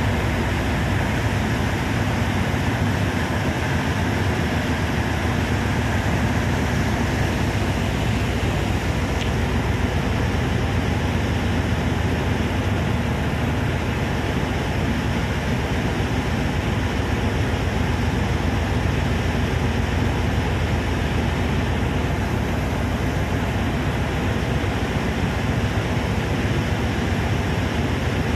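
Steady, loud rumbling drone aboard a cargo supply vessel underway, its engines and machinery running, with a rushing noise over it.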